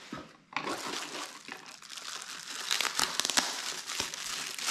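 Plastic bubble-wrap packaging crinkling and crackling as it is handled and lifted out of a box, starting about half a second in.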